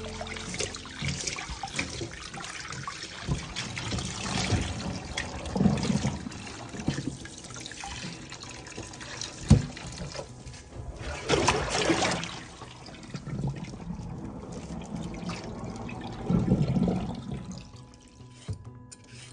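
Tap water running and splashing into a ceramic onabe (hotpot) in a stainless steel sink as it is scrubbed with a sponge, the water sloshing in the pot. A sharp knock about nine seconds in, and the running water stops near the end.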